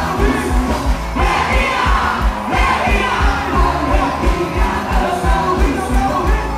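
Quadrilha junina music: a song with singing over a steady, fast beat.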